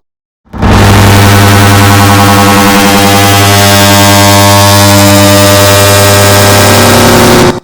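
Air conditioner start-up sound, digitally stacked many times over into a very loud, distorted drone with a strong low hum and many steady tones layered on top. It cuts in abruptly about half a second in and cuts off abruptly near the end.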